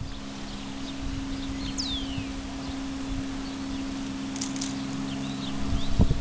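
Outdoor ambience: a steady low hum, like a distant idling motor, with a bird's single falling whistle about two seconds in and a few faint high chirps later.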